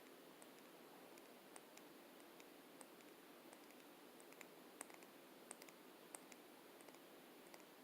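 Faint, irregular clicks and taps from lipstick cases being handled, a dozen or so small sharp ticks scattered over low hiss.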